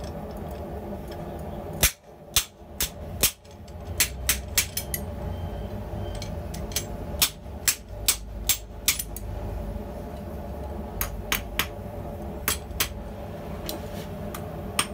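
Hand hammer striking the top die of a steel guillotine tool to flatten a red-hot drill bit held on edge, forming the center point of a spade bit: ringing steel-on-steel blows in irregular groups, some single and some in quick runs of several strikes. A steady low hum runs underneath.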